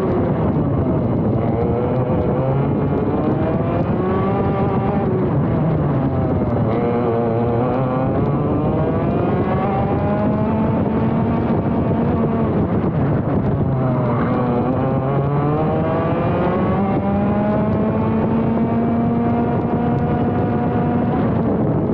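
Vortex ROK GP Junior 125cc two-stroke kart engine heard onboard at racing speed, its revs climbing on the straights and dropping sharply into corners, with the deepest drops about a third and two-thirds of the way through.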